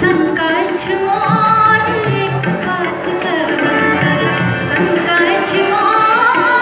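Live performance of a Maithili nachari, a devotional folk song: tabla and dholak keep a brisk rhythm under a keyboard melody, with a woman singing.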